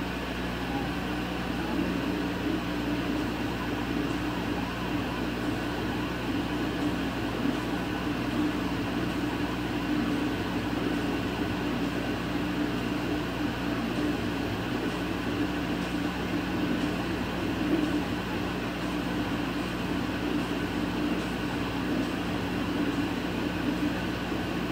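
Laser cutter running while it engraves a design into cherry wood: a steady mechanical hum and whir that holds even throughout.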